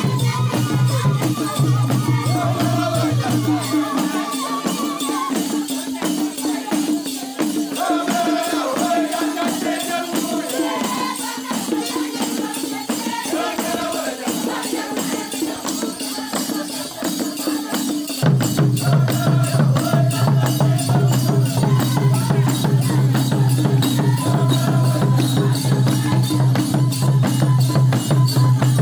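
Acholi Bwola dance music: many small hand-held drums beaten with sticks in a fast, steady rhythm, with voices singing along. A low steady hum under the music drops out about four seconds in and returns about eighteen seconds in.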